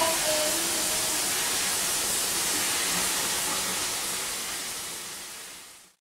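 Shower water running, a steady hiss heard through a closed glass shower door, fading away over the last two seconds until it cuts off.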